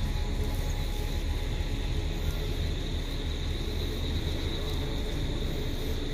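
Steady outdoor background noise: a low rumble with a steady high-pitched drone over it.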